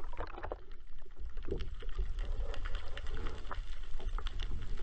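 Muffled underwater sound picked up by a camera held below the sea surface: a steady low rumble with many faint scattered clicks and crackles.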